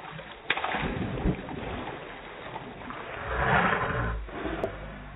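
Slowed-down water sounds from a swimming pool as a Yorkshire terrier jumps in: a hissing, sloshing rush of water that swells to its loudest about three and a half seconds in.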